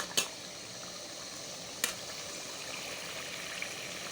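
A pot of tomato stew in groundnut oil simmering with a steady bubbling hiss. Two sharp clicks cut through it, one just after the start and one a little under two seconds in.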